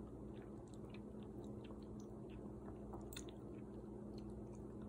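A person chewing a mouthful of soft millet and bean soup close to the microphone: faint, irregular wet mouth clicks and smacks over a steady low hum.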